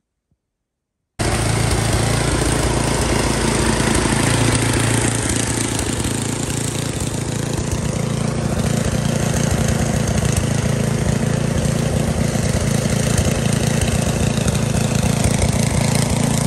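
A vehicle engine idling steadily, a constant low rumble that comes in abruptly about a second in.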